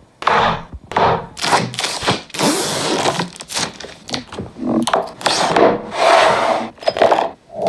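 Packaging being handled during an unboxing: a string of rubbing, sliding swishes and short knocks as box parts are opened and moved.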